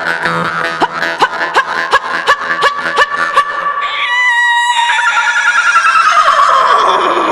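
Yakut khomus (jaw harp) plucked in a steady rhythm, about three strikes a second, over its twanging drone. About four seconds in the plucking stops and a wavering high, animal-like call gives way to a long falling cry over a held tone.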